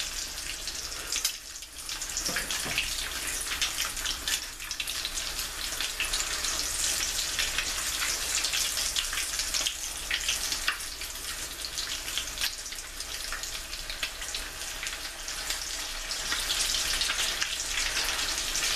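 Salmon patties frying in hot oil in a pan over medium-high heat: a steady sizzle full of fine crackling.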